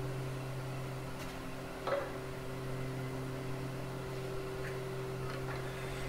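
Laguna wood lathe running with no tool on the wood: a steady motor hum as the spindle turns the small maple workpiece, with one faint tick about two seconds in.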